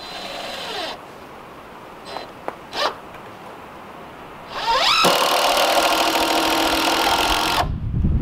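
Cordless drill driving a screw into stacked 2x lumber: a short whir at the start and two brief trigger blips, then the motor winds up and runs loaded for about three seconds before cutting off suddenly.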